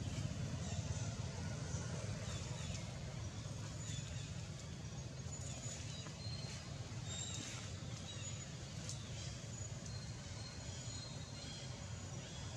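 Outdoor ambience: a steady low rumble, with faint, short high-pitched chirps scattered through it.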